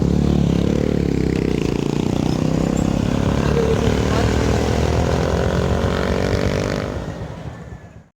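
Engine running, its pitch rising and falling, fading out in the last second.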